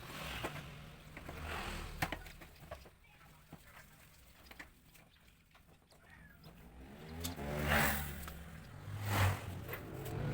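Old motorcycle engine running at low idle, with two short rises in revs about eight and nine seconds in, and a few light clicks of handling.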